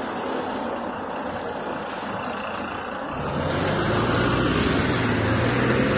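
LiAZ 5292.22 city bus with a MAN D0836 inline-six diesel moving off and passing close by. Its low engine hum comes in strongly and grows louder about three seconds in, as the rear-mounted engine draws level.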